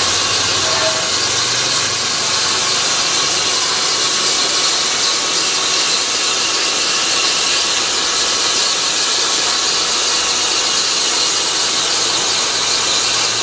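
CNC plasma cutter torch cutting metal: a loud, steady hiss of the plasma arc with a high squealing edge.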